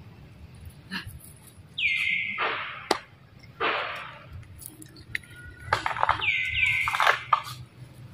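Loud animal calls, several times: each starts with a quick whistle falling in pitch and then breaks into a rougher, noisier cry.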